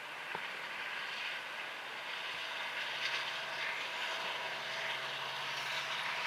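Manifest freight train rolling past: a steady noise of steel wheels on rail that builds slightly about a second in, then holds.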